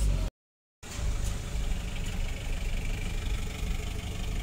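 Car engine and road noise heard from inside the cabin while driving slowly, a steady low rumble. It cuts out completely for about half a second near the start.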